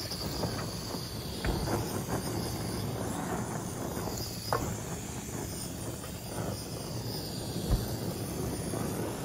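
Steady outdoor background hiss with a few faint, light clicks and taps while seasoning is shaken from a small shaker over raw chicken legs on a metal tray.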